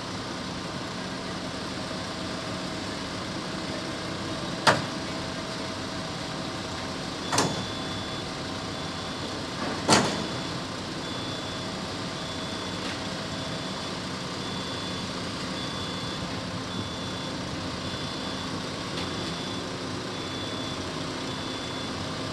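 Truck cranes' diesel engines running steadily during a heavy lift. There are three sharp knocks about 5, 7 and 10 seconds in, and a high beep repeating about twice a second from about 7 seconds on.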